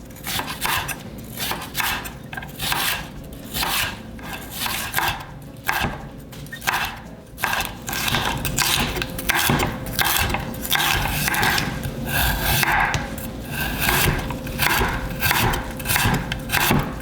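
Knife cutting on a wooden cutting board: a long run of irregular cutting strokes mixed with scraping and rubbing.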